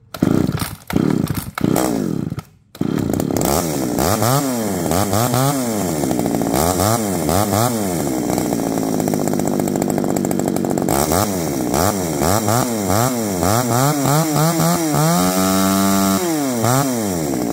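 G405 two-stroke chainsaw being pull-started, catching after about three seconds, then revved up and down repeatedly, with one longer high rev near the end before dropping back.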